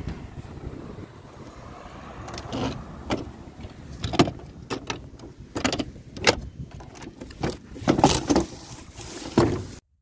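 Low rumbling handling noise, then a run of sharp wooden knocks and clicks as a wooden field easel is set up and its thumbscrew fittings handled, the loudest knocks about four and eight seconds in. The sound cuts off abruptly just before the end.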